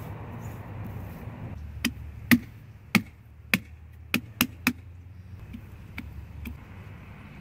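Kitchen knife stabbing into a pumpkin's rind as a jack-o'-lantern is carved: a run of about seven sharp knocks starting about two seconds in, then a few fainter ones.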